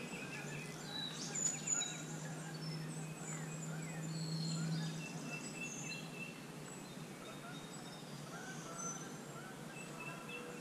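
Several songbirds chirping and whistling, short overlapping calls throughout, with a low steady hum in the first half that stops about five seconds in.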